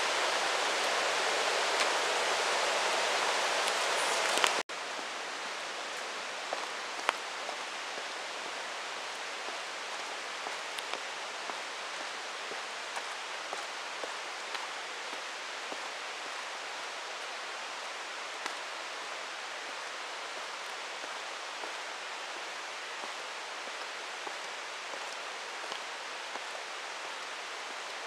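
Rushing mountain stream, a steady even hiss of water over rocks, which cuts off abruptly after about four and a half seconds. After the cut, a quieter steady forest ambience follows with faint scattered ticks.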